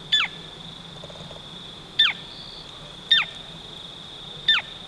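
Unidentified animal calling from reeds at a dam: four short, sharp calls, each a quick falling note, about one to one and a half seconds apart, over a steady high-pitched drone. The recordists take the caller for a bird but cannot name it; they had also wondered about a bush baby.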